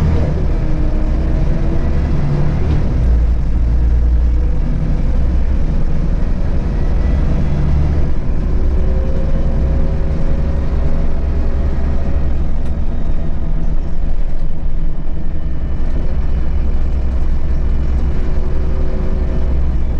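Rear-mounted six-cylinder diesel engine of a Volvo B7RLE city bus heard from inside the cabin while the bus drives, a steady low drone. A whine rises in pitch about a second in and again around eight seconds in as the bus gathers speed.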